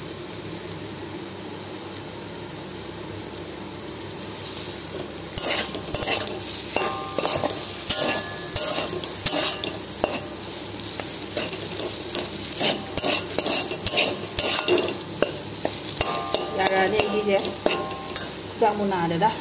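Mashed potato and onion filling frying in a metal pan with a steady sizzle. About five seconds in, a metal spatula starts scraping and clinking against the pan as the filling is stirred and pressed, in quick irregular strokes.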